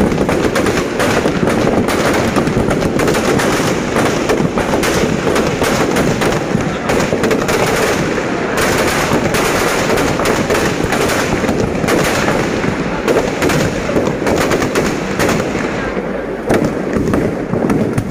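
Firecrackers packed inside a burning Ravan effigy going off in a dense, rapid string of bangs and crackles, like machine-gun fire, easing slightly about sixteen seconds in before picking up again.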